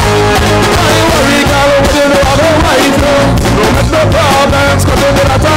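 Live stage band playing an upbeat song, loud, with a steady beat and a wavering melody line over it.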